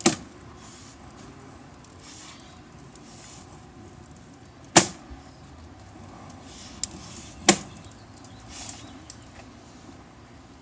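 Four sharp clicks and knocks, one at the start, one about five seconds in and two close together near seven seconds, over a faint steady hiss. They come from handling a sewer inspection camera's push cable and reel.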